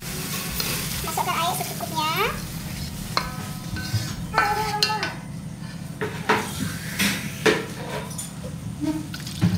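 Wooden spatula stirring and scraping a thin chili paste around an aluminium wok, with sizzling and a few sharp knocks of the spatula against the wok in the second half. A few short, high calls sound in the background.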